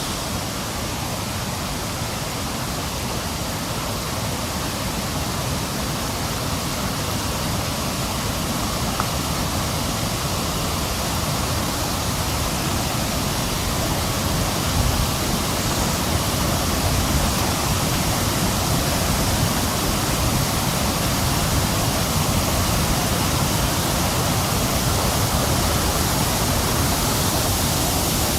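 Small hillside stream swollen by heavy rain into a powerful waterfall: a steady rush of water, growing slightly louder as it goes.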